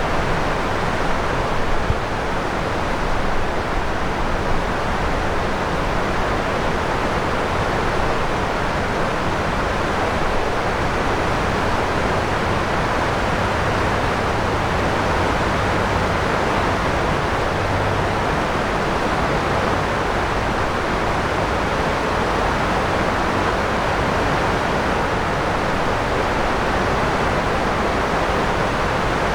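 Steady rushing of river water, an even hiss that does not let up. A faint low drone of traffic sits underneath it.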